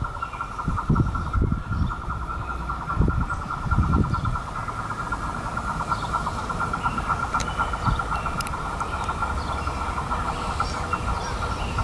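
SEPTA Silverliner IV electric commuter train approaching slowly, a low rumble. A steady high-pitched shrill drone runs under it throughout.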